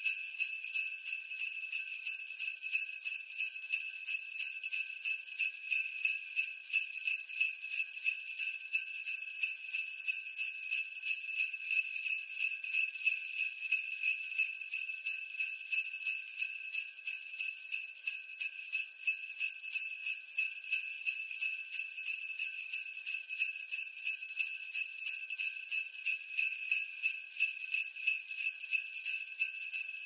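Jingle bells shaken in a steady, even rhythm of about three shakes a second, a high-pitched metallic jingling.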